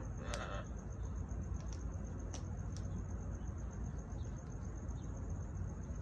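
Amazon parrots eating kiwi: a short soft crunch with a sharp click under half a second in, then a few isolated sharp beak clicks. Under them run a steady low rumble and a high, evenly pulsing tone.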